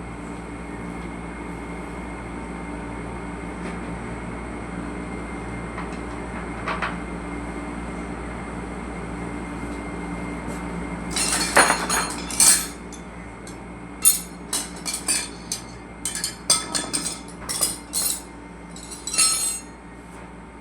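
A steady mechanical hum throughout. In the second half come a series of sharp clinks and knocks: a cluster about eleven seconds in, then about a dozen irregular hits over the next six seconds.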